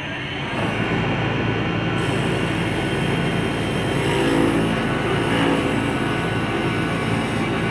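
CNC wood turning lathe cutting a spinning wooden blank: the steady dense noise of the cutter shearing wood, over a low motor hum. The noise builds up over the first second as the cut begins, then holds steady.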